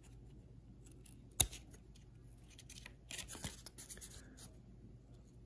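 Faint handling of old wax-pack trading cards: a sharp click about a second and a half in, then scratchy rustling twice as a card is worked loose from stuck gum.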